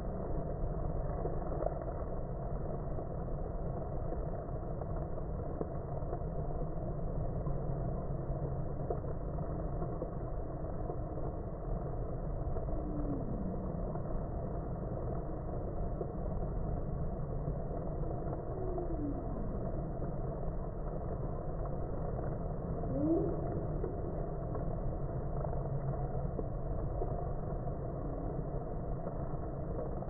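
Honeybees at a hive entrance: a low, steady droning hum, with a few short sliding tones, some falling and some rising, about four in all.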